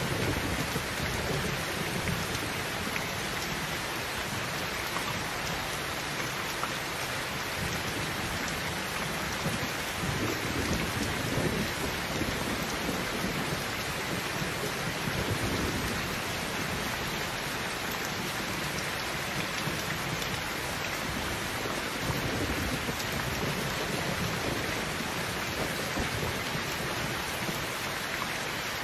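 Heavy rain falling steadily, with a few low rumbles of thunder.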